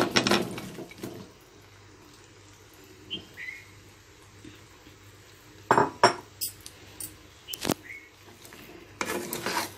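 Raw mango pieces tumbling into a pan of hot sugar syrup, then a spatula knocking sharply against the pan a few times and scraping through the pieces near the end.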